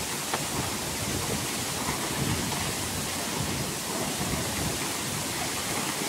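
A strong waterfall pouring steadily into a rock pool: an even, unbroken rushing noise.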